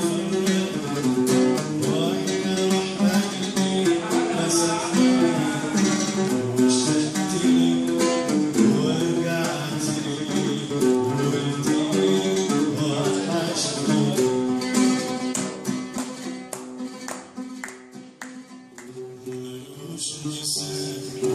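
Oud played solo, a quick melody picked note by note with a plectrum. The playing grows quieter a few seconds before the end, then picks up again.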